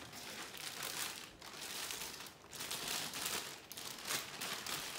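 Plastic packaging crinkling and rustling in irregular bursts as a clear plastic bag is handled and opened.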